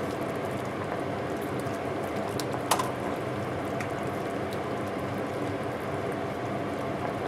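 Electric stand mixer running steadily, its whisk beating egg whites into a meringue, with a single sharp clink about three seconds in.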